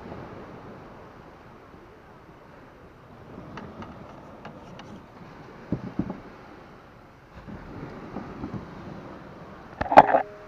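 Wind on the microphone over low surf on a sandy beach, with a few faint clicks and knocks from the sail rig. Near the end comes a sharp knock with a brief ringing note, the loudest sound.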